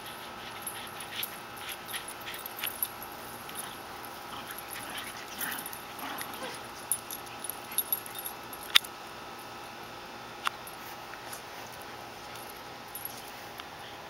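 Two small dogs making excited dog sounds as they clamber over a person, with scattered sharp clicks; the loudest click comes about nine seconds in and another about a second and a half later.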